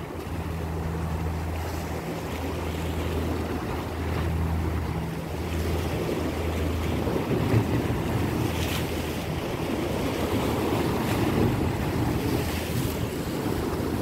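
Seaside wind buffeting the microphone over the sound of waves, with a low steady boat-engine hum that breaks on and off during the first half and then fades.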